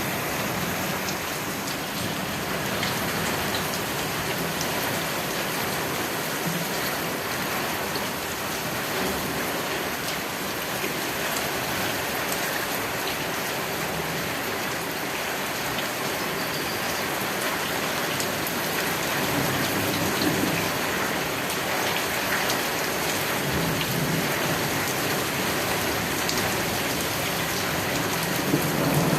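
Steady heavy rain falling at night, with a dense patter of drops at an even level. A few low swells rise under it about two-thirds of the way through and again near the end.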